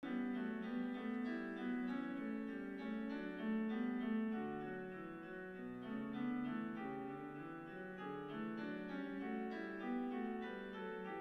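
Background piano music: a steady, unbroken stream of notes.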